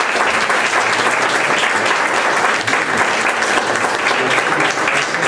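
Audience applauding, a dense and steady clatter of many hands clapping.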